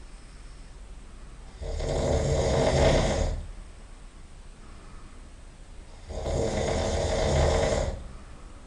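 A man snoring loudly in his sleep: two long, rough snores, each nearly two seconds, about four and a half seconds apart, with quieter breathing between.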